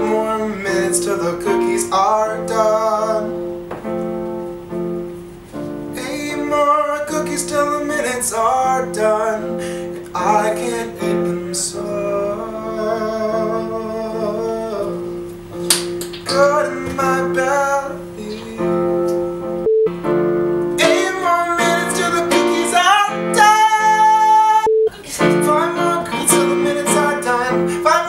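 A woman singing, accompanied by sustained chords on an electronic keyboard.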